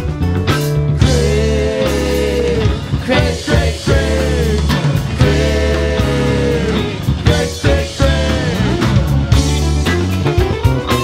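Live rock band playing a psychedelic jam: electric guitars, bass, drums and keyboards. A lead line holds two long, wavering notes, one about a second in and another around the middle.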